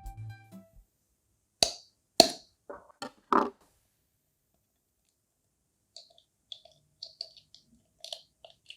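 Kitchen utensils and dishes knocking and clicking during food preparation: about five sharp knocks a second or two in, then after a pause a run of light, quick clicks.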